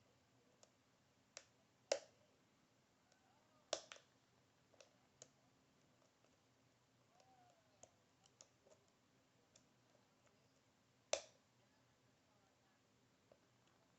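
Scattered small metallic clicks and ticks of a lock pick and tension wrench working the pin stacks of an Ikon SK6 lock cylinder. Sharper clicks come about two seconds in, near four seconds and about eleven seconds in.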